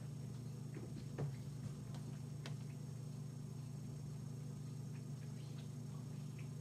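Steady low room hum with a few light clicks and a soft knock about a second in.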